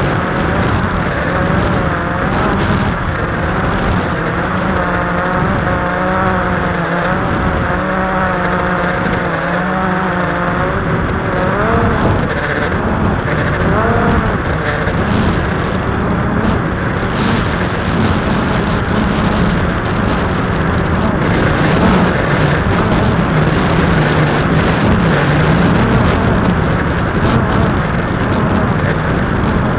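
Camera drone's electric motors and propellers buzzing steadily. The pitch wavers up and down as the motors change speed, most clearly in the first half.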